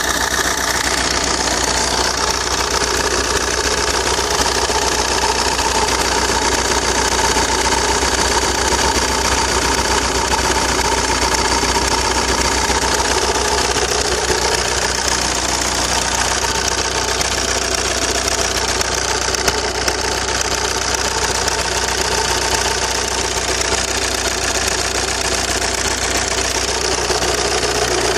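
Opel 1.9 CDTI four-cylinder turbodiesel idling steadily, loud because the phone is held very close to the engine.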